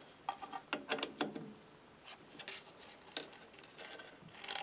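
Handling noise at a metal lathe: a quick cluster of light clicks and metallic rattles, then a few single clicks, as the four-jaw chuck is turned by hand.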